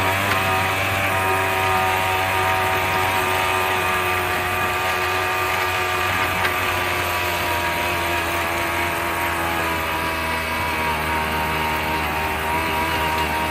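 Agzat Terra Vari two-wheel walking tractor engine running steadily at top speed as the tractor drives along, a constant engine note with many even overtones.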